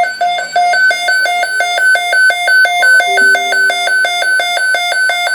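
NOAA weather radio receiver's alert alarm going off for a tornado watch: a loud electronic beeping that alternates between a low and a high tone about three times a second. About three seconds in, a fainter steady lower tone sounds for about a second.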